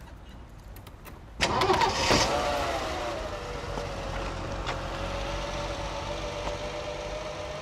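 Audi Quattro's turbocharged five-cylinder engine starting about a second and a half in, with a short rev that falls away to a steady idle.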